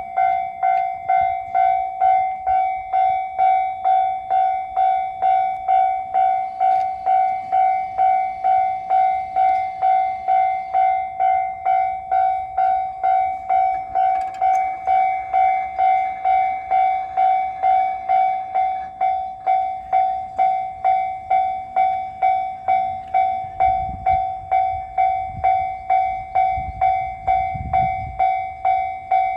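Japanese level-crossing alarm ringing: an electronic bell dinging steadily about twice a second without a break. Under it, the low rumble of a passing JR West 223 series electric train swells a little over 20 seconds in and fades near the end.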